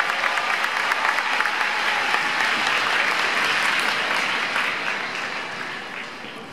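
Audience applauding, a dense patter of many hands clapping that dies away over the last couple of seconds.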